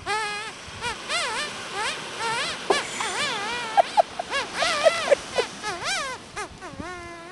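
High, warbling wordless vocal noises done as a 'song': the pitch wobbles quickly up and down in repeated swoops, broken by a few short sharp squeaks in the middle, and ends on a long steadier note.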